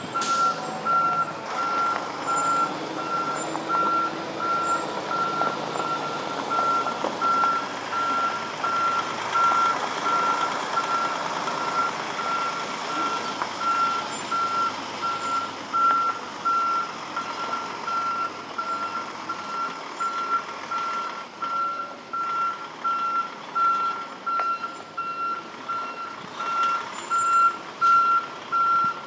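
Backup alarm of a diesel dump truck beeping steadily at one pitch while the truck reverses, with its engine running underneath.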